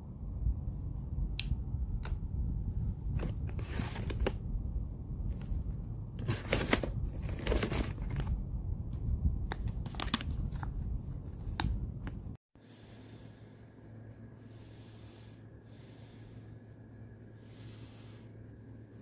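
Plastic treat packaging crinkling and crackling as it is handled, with sharp clicks and bumps of handling close to the microphone. After a sudden cut about two-thirds of the way through, it is much quieter: a low steady hum with faint rustling.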